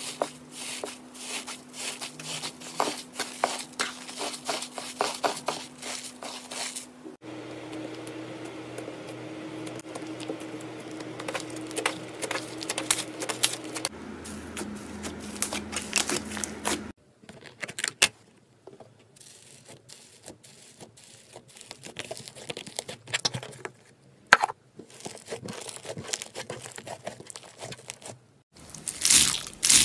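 Hands squishing, pressing and stretching slime: a run of sticky crackles, pops and clicks that changes in character from clip to clip.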